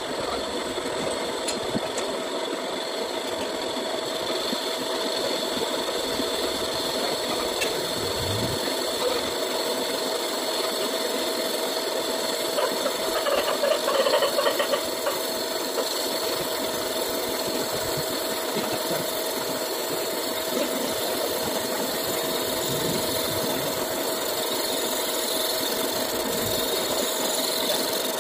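Metal lathe running, with a carbide tool taking a finishing cut on a spinning final-drive part: a steady machine hum with a thin whine, growing louder and rougher for a couple of seconds about halfway through.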